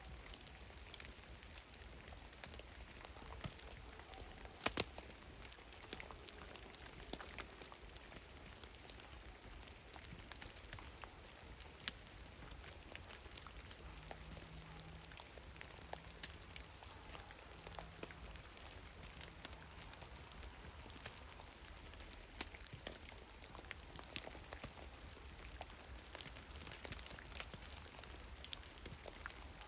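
Meltwater drops falling from snow-laden trees in a forest, pattering irregularly like scattered rain. A couple of heavier drops land sharply about five seconds in.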